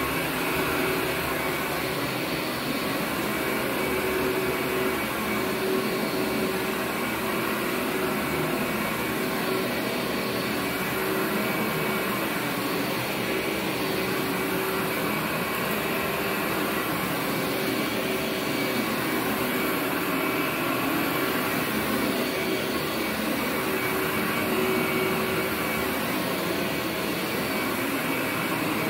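Workhorse upright vacuum cleaner running steadily as it is pushed over carpet: an even motor noise with a faint steady whine.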